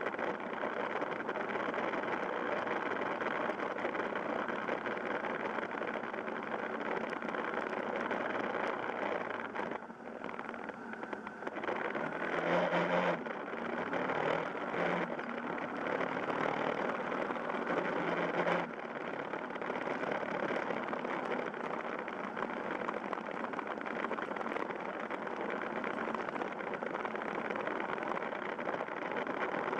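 Yamaha Fazer YS250 motorcycle's single-cylinder engine running on the move, under a steady rush of wind noise over the microphone. The sound dips briefly about ten seconds in, then grows louder with a more distinct engine note for about six seconds before dropping back suddenly.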